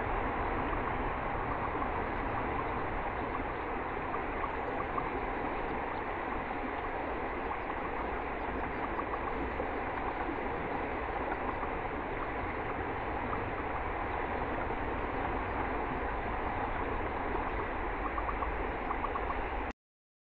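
Steady rush of flowing river water picked up by a trail camera's microphone, cutting off suddenly near the end.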